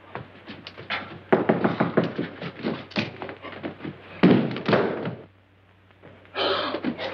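Hurried bumping, knocking and rustling as clothes are stuffed into a wall laundry chute, with a loud bang about four seconds in and another burst of knocking near the end.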